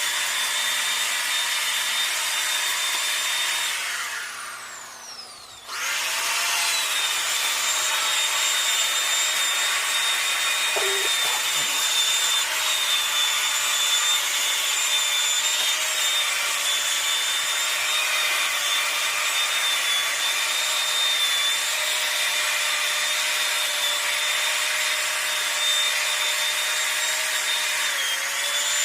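Handheld electric power tool cutting into wood with a steady high whine. It is switched off and winds down about four seconds in, starts up again about two seconds later, and winds down again at the end.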